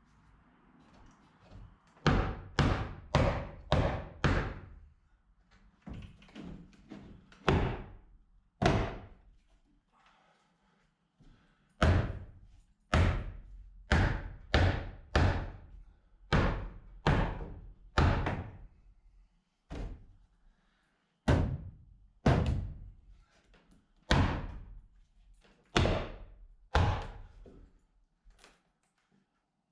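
Hammer blows on wooden wall boards: sharp, ringing strikes in runs of several at about two a second, with short pauses between the runs.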